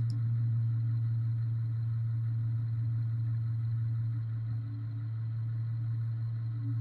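Steady low drone of a heavy tow truck's diesel engine, heard from inside the cab, running while the rotator boom swings a load.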